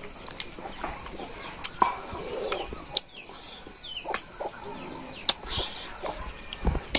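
Chickens clucking, with scattered short clicks and taps.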